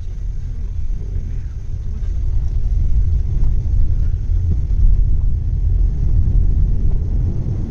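Low, steady rumble of road and engine noise heard inside the cabin of a Volkswagen Taigun GT on the move, growing louder about two to three seconds in.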